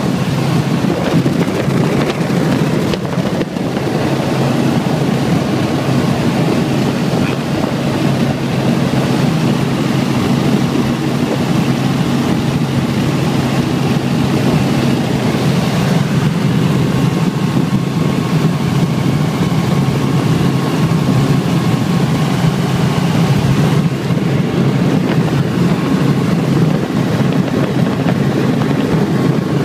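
Helicopter engine and rotor running steadily in flight, heard from inside the cabin.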